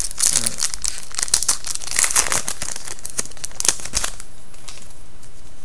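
Foil wrapper of a hockey trading-card pack crinkling and tearing as it is opened by hand, for about four seconds before it stops.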